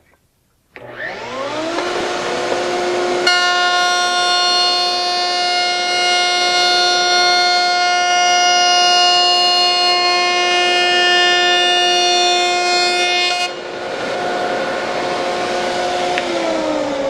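Router in a Festool CMS router table switched on and spinning up to a steady high-pitched whine. From about three seconds in, a louder, denser whine runs for about ten seconds as the straight bit cuts a rabbet along the edge of a board held against the fence. The router then runs free again and is switched off near the end, its whine falling as it spins down.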